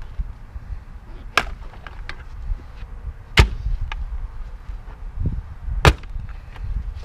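Three sharp metal strikes about two seconds apart, with a few lighter knocks between them: a hammer driving a steel wedge and pry bar into the seam of a safe to force it open. A steady low rumble runs underneath.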